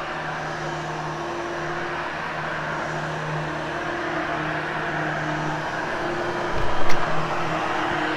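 Vacuum cleaner running steadily over carpet with a constant motor hum, and a short knock about seven seconds in.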